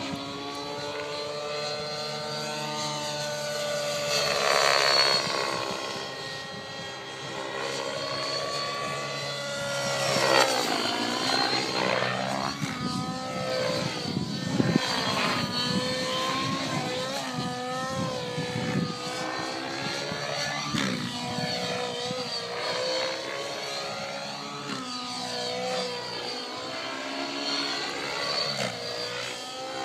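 Align T-Rex 700N nitro RC helicopter's two-stroke glow engine and rotor running hard in flight, the pitch rising and falling as it manoeuvres and passes, loudest about four and ten seconds in.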